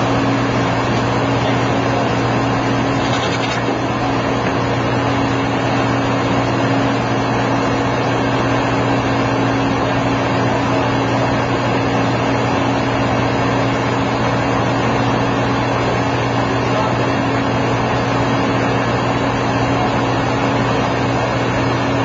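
Steady machinery drone with a constant low hum, unchanging in level.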